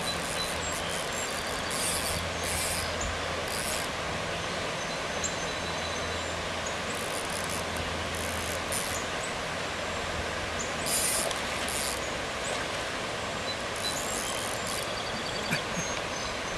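Steady rush of creek water flowing over shallow riffles, with short hissy splashes now and then and a faint low hum that fades after about ten seconds.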